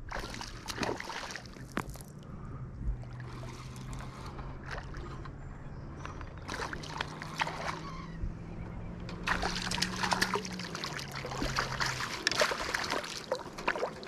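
A hooked smallmouth bass splashing and thrashing at the water's surface as it is reeled in, the splashing heaviest over the last few seconds as it nears the net. Under it runs a low steady hum from the spinning reel being cranked, which rises in pitch about halfway through and stops near the end.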